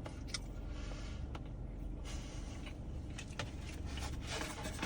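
A steady low hum, with a few soft clicks and taps, likely from eating.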